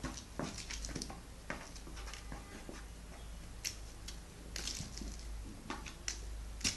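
Irregular light taps, scrapes and rattles of a calico kitten batting a shiny golden beaded ball on a stick and scrabbling inside a small cardboard box, the sharpest tap near the end, over a steady low hum.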